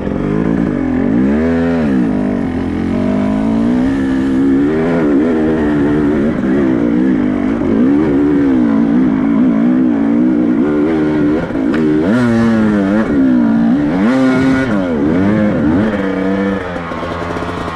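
Off-road motorcycle engine revving up and down over and over, its pitch rising and falling every second or two, with sharper blips about two seconds in and again near the end.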